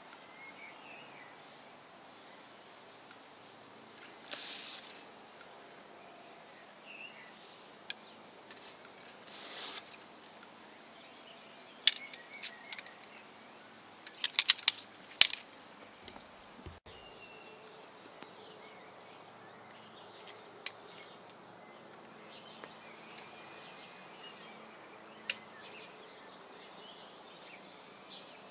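Arrows pulled out of a foam archery target: two short rasps a few seconds apart, then a cluster of sharp clicks as the wooden arrow shafts knock together. A faint, fast, even pulsing high tone runs underneath.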